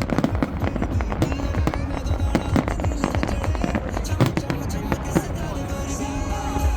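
Fireworks going off in quick succession: many sharp bangs and crackles, irregular and overlapping. Music from the display's soundtrack plays underneath, with steady tones standing out near the end.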